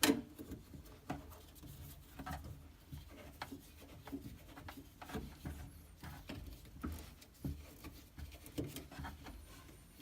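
Hard plastic aquarium plumbing fittings being handled: scattered light clicks and rubbing, with a sharper knock at the start.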